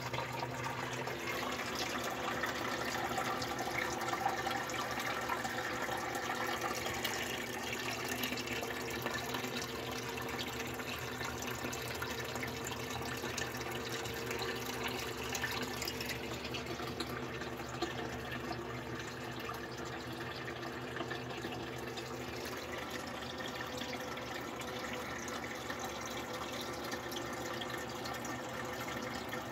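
Water running and trickling steadily in a turtle aquarium, over a low steady hum, as from the tank's filter.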